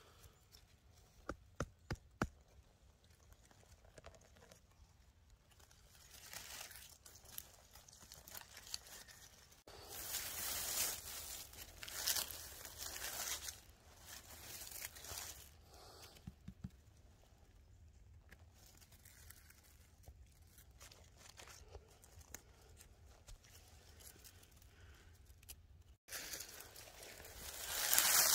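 Dry pine needles and dead bracken on the forest floor rustling and crackling as a hand brushes through them, in several uneven bursts, the loudest near the end. A few sharp clicks come about a second and a half in.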